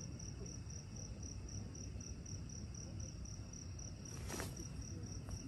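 A cricket chirping faintly and steadily in rapid, evenly spaced pulses over a low background hiss, with a brief soft noise about four seconds in.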